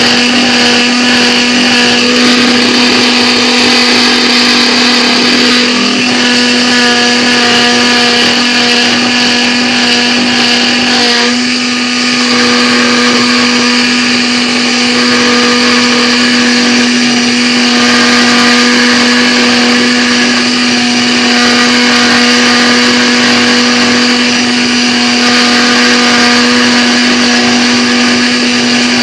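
Proxxon MF-70 CNC mini mill running while cutting 3 mm acrylic (plexiglass): a loud, steady motor whine with a constant pitch, dipping briefly in level about eleven seconds in.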